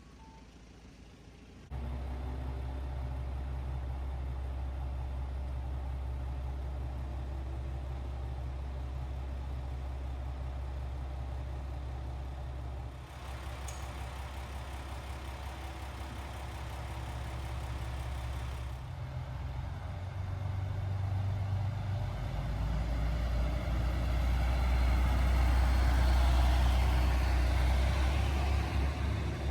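Diesel railcar running with a steady low engine rumble that comes in suddenly about two seconds in. From about two-thirds of the way through it grows louder, with a rising rush of running noise over the rumble.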